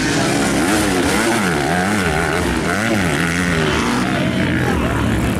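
Motocross dirt bike engines revving on the track, their pitch rising and falling about once a second as the throttle opens and closes through the corners, with other bikes droning underneath.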